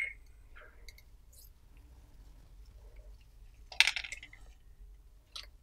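Small clicks and clinks of a plastic syringe and needle against a small glass vial as the hyaluronidase solution is drawn in and out to mix. A louder cluster of clicks comes about four seconds in.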